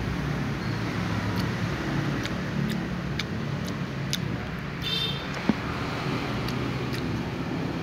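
Steady low background rumble, with scattered faint clicks, a brief high-pitched squeak about five seconds in and a sharp click just after it.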